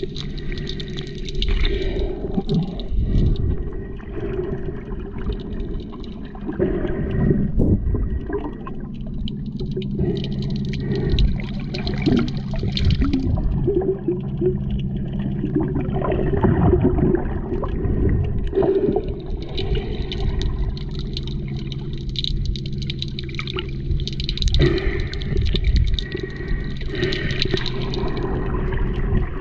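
Underwater sound picked up by a camera in a waterproof housing: muffled rushing and sloshing of water with a steady low hum and some crackling.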